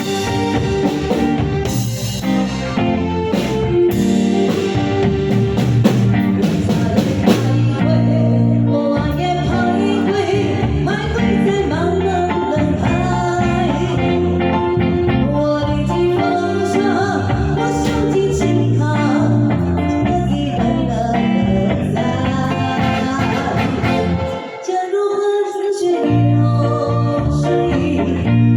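A singer performing an enka-style ballad over guitar-led backing music. The bass drops out briefly near the end.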